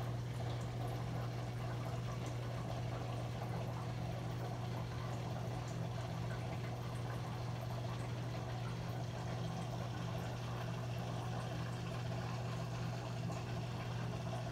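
Aquarium filter running: a steady low hum under constant trickling, splashing water.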